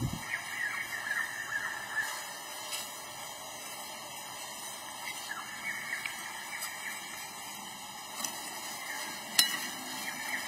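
Knife scoring a whole fish on a wooden chopping block: crisp, scratchy cuts through the scaly skin in several spells, with a sharp tap about nine seconds in.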